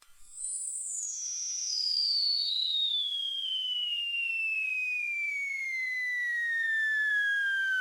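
A thin, high whistling tone that starts about half a second in and slides smoothly and steadily down in pitch, from very high to a middle whistle, with a faint hiss beneath.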